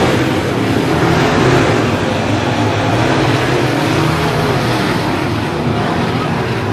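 Dirt late model race car engines running loud and steady.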